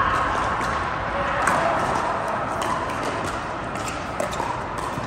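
Pickleball paddles hitting the plastic ball: several sharp pops at irregular spacing over the steady din of a large indoor hall.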